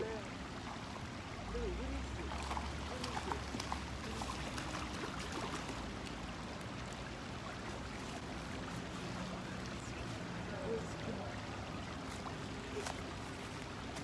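Small creek running over rocks: a steady rush of shallow flowing water, with a few faint clicks and a brief low rumble about two seconds in.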